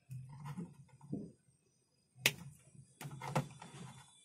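Wire cutters snipping through a UPS battery lead to remove its broken crimp terminal: one sharp snap about two seconds in, amid light clicks and rustle from handling the tool and wire.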